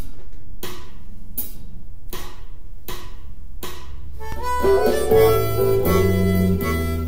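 A blues backing track keeps a steady beat, about one stroke every three-quarters of a second, and about four seconds in a harmonica comes in playing blues phrases, held cupped in the hands, over bass notes.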